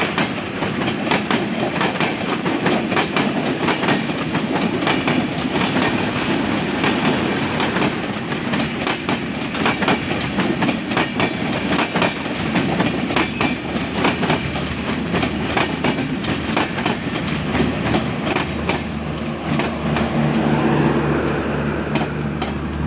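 Kopotakkho Express passenger train running on Bangladesh Railway track, its wheels clattering quickly over the rail joints. A low steady drone comes in near the end.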